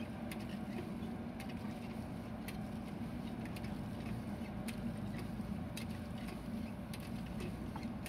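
JCB 3DX backhoe loader's diesel engine running steadily while the backhoe digs, with scattered sharp ticks and clicks at irregular intervals.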